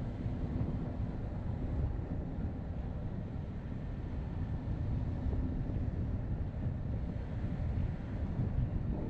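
Car driving: a steady low rumble of road and wind noise on the camera's microphone.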